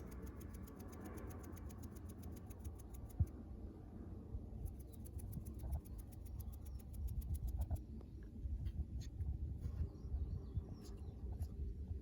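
Quiet outdoor ambience: a steady low rumble, with a fast, even high ticking that runs for about three seconds, pauses, then runs again for about three seconds, and a few faint clicks and small chirps near the end.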